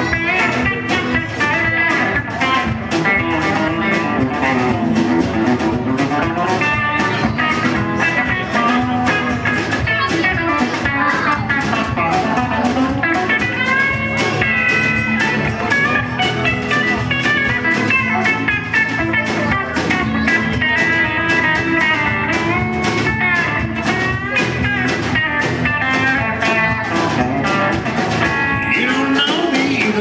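Live country band playing: electric and acoustic guitars over bass and a steady drum beat.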